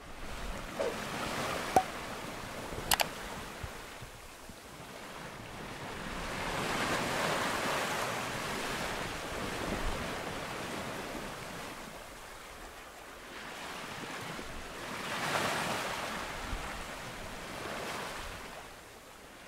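Sea rushing and splashing past the hull of a sailboat under way, with wind; the wash swells up twice, as larger waves pass. A few sharp clicks come in the first three seconds.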